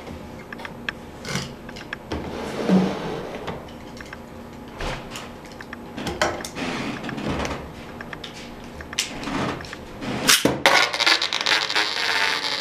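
Plastic clicking, knocking and rubbing as a Beyblade stadium's clear plastic cover and launcher gear are handled, with a sudden louder stretch of noise starting about ten seconds in.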